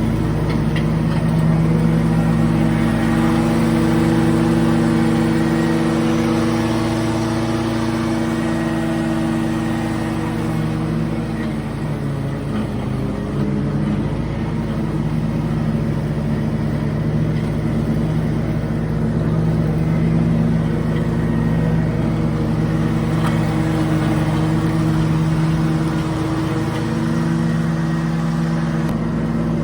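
A motor vehicle's engine running steadily, its tone wavering and fading briefly about 12 seconds in before settling again.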